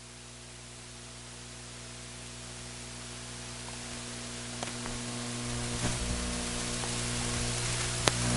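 A pack of factory stock dirt-track cars coming around for the restart: their engines are a rushing noise that grows steadily louder, with a deeper rumble joining near the end. A steady electrical hum runs underneath.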